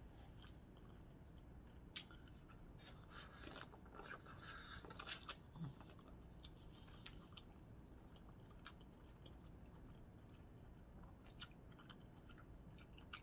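Faint eating sounds: a person chewing seafood, with scattered small clicks and crackles, busiest from about three to six seconds in.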